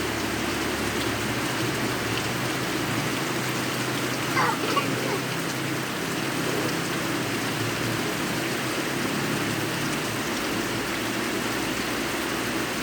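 Steady rain falling, an even hiss without a break. About four and a half seconds in, a short wavering call rises above it.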